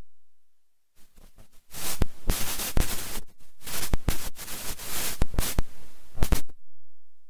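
Crackling, rustling noise picked up by a desk microphone, full of sharp clicks. It starts faintly about a second in, grows dense, and cuts off suddenly shortly before the end.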